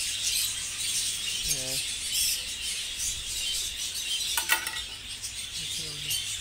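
Continuous twittering chatter of a large flock of budgerigars in a breeding aviary, many birds calling at once. A sharp knock comes about four and a half seconds in, over a steady low hum.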